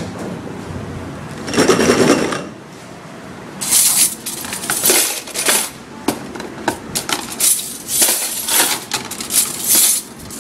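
Dishes and cutlery clattering and clinking as they are handled. There is a louder burst of noise about two seconds in, then a quick, irregular run of sharp knocks and clinks from about four seconds in.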